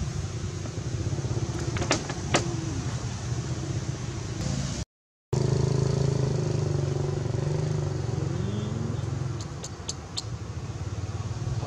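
A motor vehicle engine running steadily, its low hum rising in pitch about eight seconds in, with a few sharp clicks. The sound cuts out completely for a moment about five seconds in.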